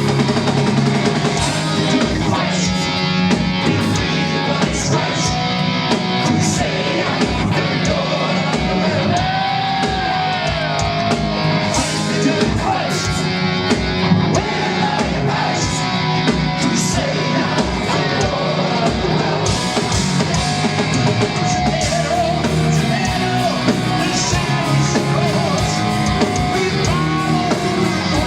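Heavy metal band playing live at full volume, with distorted electric guitars, drum kit with cymbals, and singing.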